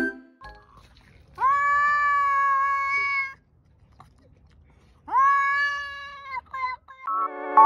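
Ginger cat yowling at another cat in a face-off: two long, drawn-out calls held at a steady pitch, followed by a few short ones. This is a territorial standoff yowl.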